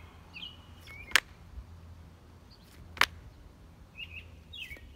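Two sharp slaps of slide sandals landing on asphalt as a person hops, one about a second in and another about two seconds later. Birds chirp briefly in the background.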